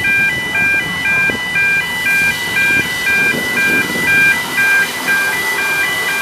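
Level crossing warning alarm sounding a steady, repeating high two-tone pattern, over the low rumble of a South African NG G16 Garratt steam locomotive crossing the road.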